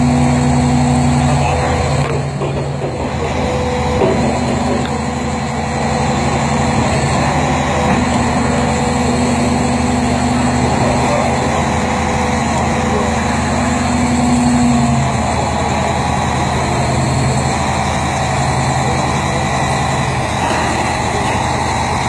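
Large diesel engine of a Liebherr PR 776 crawler dozer running steadily and loud, its tone shifting slightly about a second and a half in and again around fifteen seconds.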